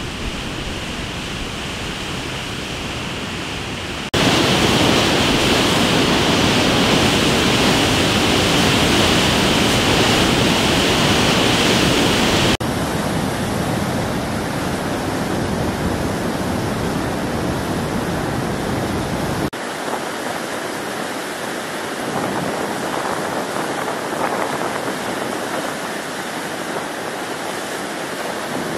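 Black Butte Dam's flood-control spillway release: muddy water rushing out of the outlet and churning violently in the basin, a steady heavy rush. It jumps louder about 4 seconds in, then drops back somewhat at about 12 seconds and again at about 19 seconds.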